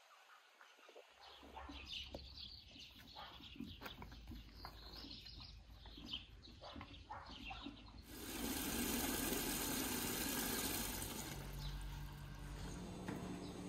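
Birds chirping faintly, then about eight seconds in a loud hiss of water from an outdoor wall tap pouring into a plastic bucket, lasting about three seconds before it stops.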